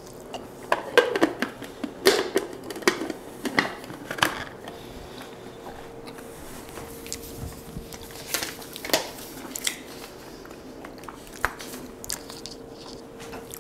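Scattered plastic clicks and knocks as the lid and work bowl of a KitchenAid food chopper are fitted and handled, its motor not yet running. A faint steady hum sets in about four seconds in.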